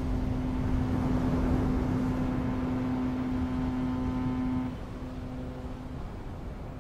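A steady, even-pitched low hum over a rumbling, gusty noise like wind on the microphone; the hum drops away a little under five seconds in and stops about a second later.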